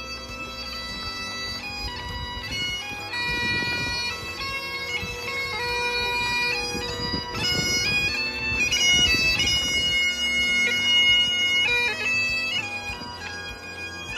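Bagpipes playing a tune of held, stepping notes over a steady drone, with a low rumble of noise beneath.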